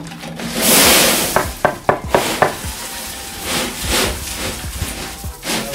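Gritty scraping with scattered clicks and knocks from hand work on concrete walkway formwork, with the longest and loudest scrape about a second in.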